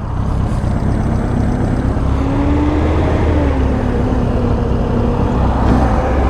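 1983 Suzuki GS1100E's air-cooled inline-four engine running steadily under the rider, its pitch rising a little and then easing back, over a dense low rumble.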